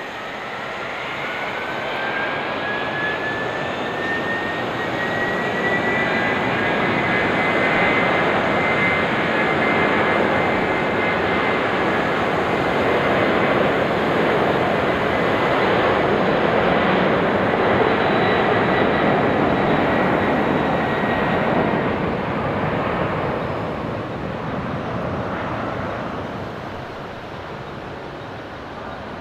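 Jet airliner's engines passing: a fan whine rises in pitch over the first few seconds and then holds steady. The engine rush swells to its loudest in the middle and fades away near the end.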